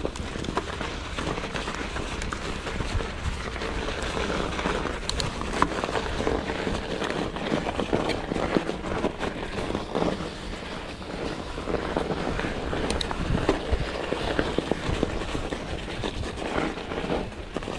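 Mountain bike riding along a singletrack trail, its tyres rolling over thin snow and mud, with frequent clicks and knocks from the bike over bumps.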